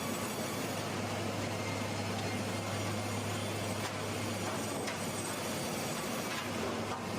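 Wood-processing sawmill machinery running: a steady mechanical noise over a constant low hum, with a couple of faint ticks.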